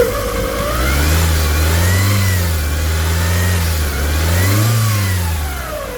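2009 Hyundai Tucson 2.0 petrol engine revved twice by hand at the throttle, the pitch rising and falling smoothly each time. The engine is being test-run after a top overhaul, with only the new timing belt fitted so far.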